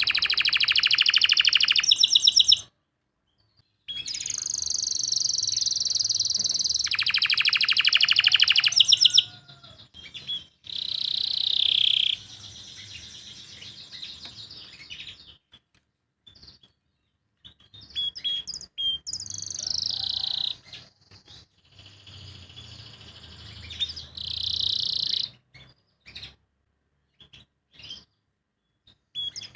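Domestic canary singing in bursts: fast high trilled phrases and warbles, broken by pauses and short chips. The bird has just come through its moult, and its song is not yet in full, energetic voice.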